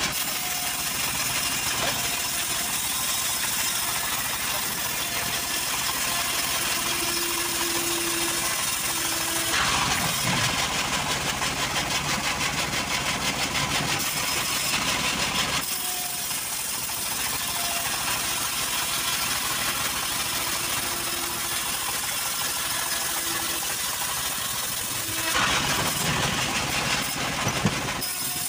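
A homemade band-saw mill driven by a belted stationary diesel engine running steadily, with the blade cutting lengthwise through a johar log in two louder, brighter passes: one about ten seconds in lasting some five seconds, and another starting near the end.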